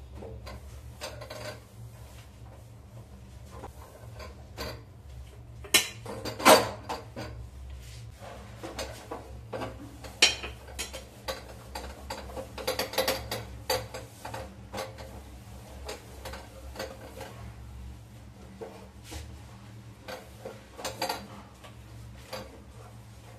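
A cloth wiping a stainless-steel gas stove top, with scattered clicks, knocks and clinks of hand, cloth and burner parts against the metal. The sharpest knocks come about six seconds in and again near ten seconds.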